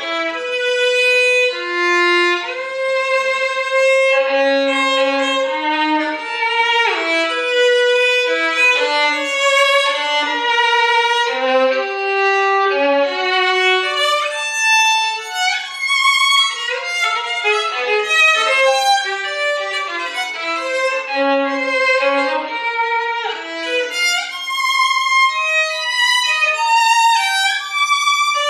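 Solo violin bowing a continuous line of short notes that leap up and down in pitch, with a few quick slides between notes.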